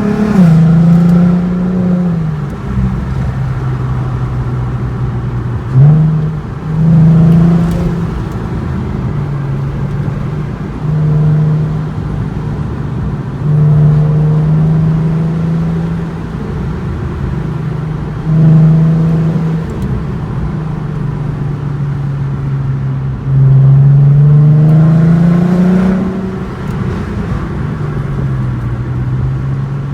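2008 Volkswagen Golf R32's 3.2-litre VR6 engine in city driving: a steady engine note broken by several short bursts of throttle, then one longer acceleration about 23 seconds in, its pitch climbing for about three seconds before dropping back.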